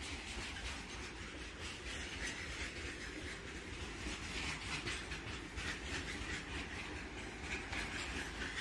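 Goods train of covered wagons rolling past on the adjacent track: steady rumble with the wheels clicking over the rails.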